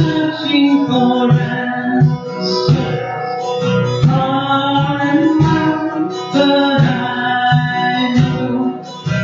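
Live song with a guitar and a singing voice, over a steady beat on conga drums.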